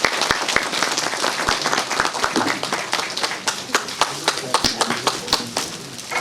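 An audience applauding, the claps dense at first, then thinning out and fading near the end.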